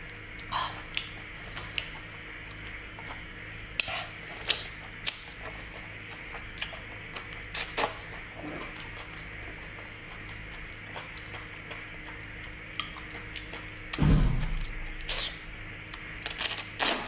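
Close-up eating sounds: wet sucking and chewing on octopus tentacles in chili oil, with scattered sharp clicks of chopsticks against a porcelain bowl. A heavier, louder slurp comes about fourteen seconds in, and a quick cluster of clicks near the end.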